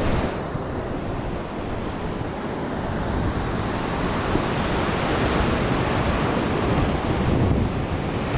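Ocean surf breaking and washing up a beach, a steady rushing with gentle swells, with wind rumbling on the microphone.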